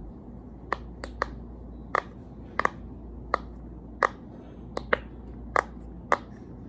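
Silicone pop-it fidget toy being pressed, its bubbles popping in sharp clicks one after another: about a dozen at uneven intervals, some in quick pairs.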